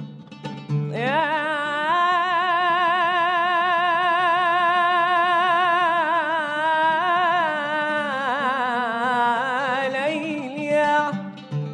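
A male singer holds one long, wavering note with heavy vibrato for about nine seconds, sliding up into it about a second in. Plucked guitar notes can be heard before and after the held note.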